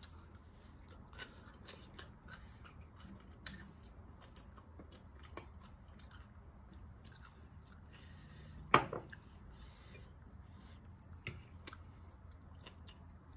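A person eating: quiet chewing with scattered soft clicks and crunches, and one sharper click about nine seconds in.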